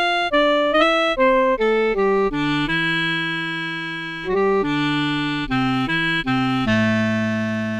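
Sampled clarinet from an SF2 SoundFont played on a keyboard: a phrase of short notes stepping downward, then longer held notes with lower notes sounding beneath.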